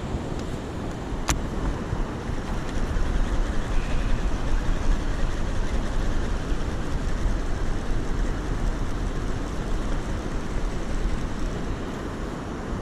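Steady rushing noise of river water, with wind buffeting the microphone, and a single sharp click about a second in.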